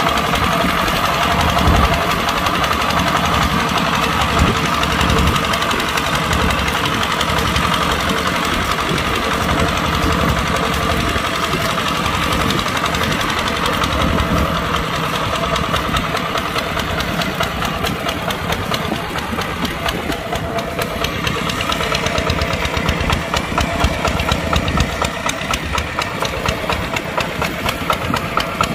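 A Kubota tractor's diesel engine running steadily under load while plowing. It eases a little past the middle and picks up again toward the end.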